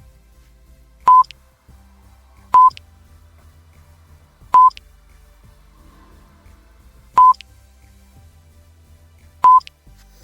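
Five short electronic beeps, each one steady pitch with a click at its start, coming at uneven intervals over faint low background music.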